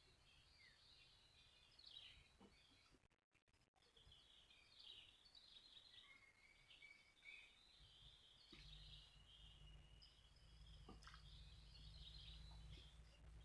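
Faint outdoor ambience of many birds twittering, with busy, irregular high-pitched chirps throughout. The sound drops out briefly twice a little after three seconds, and a low rumble comes in about eight and a half seconds in.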